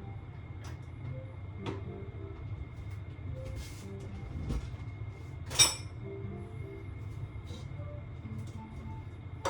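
Sharp knock about five and a half seconds in, with a few lighter clicks and a dull thud before it, over a steady low hum and soft background music notes.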